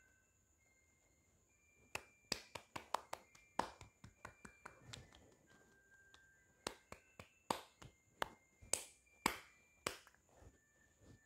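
Fingertips tapping and knocking on a phone held right at its microphone: a quick, irregular series of sharp clicks starting about two seconds in, with faint, short high tones sounding behind them.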